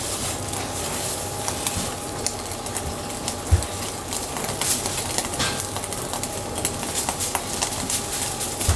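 Steady crackling sizzle of food cooking, with a dull knock about three and a half seconds in and another near the end.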